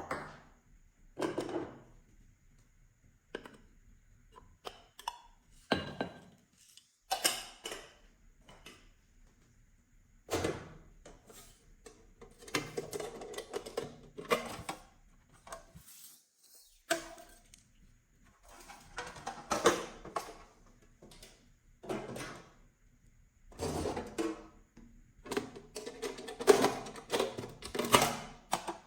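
Slime being mixed and handled: irregular bursts of squishing and clicking, some a few seconds long, with an occasional knock of a container.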